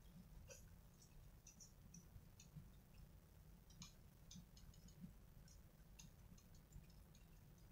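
Near silence: faint, scattered high ticks and clicks at no steady rhythm, over a low background rumble.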